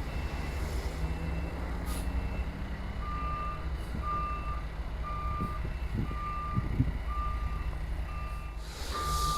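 A construction vehicle's reversing alarm beeping steadily, about once every 0.8 seconds, over the low rumble of its engine running; a fainter, higher-pitched backup beep sounds in the first seconds.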